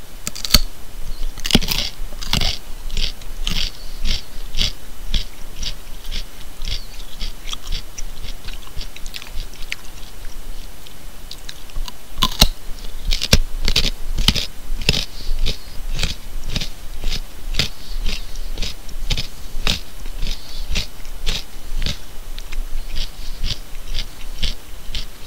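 A person biting into and chewing a carrot: a steady run of sharp crunches about two a second, with louder bites near the start and about halfway through.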